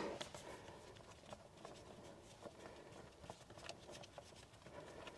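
Near silence with faint, scattered light clicks and taps as the oil filter on a Sany mini excavator's Yanmar engine is unthreaded by hand.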